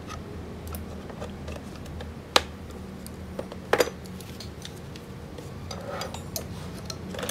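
Metal hand tools clinking and knocking as they are handled and set down. There is a sharp knock about two and a half seconds in, a short cluster of clinks near four seconds, and lighter clicks near the end.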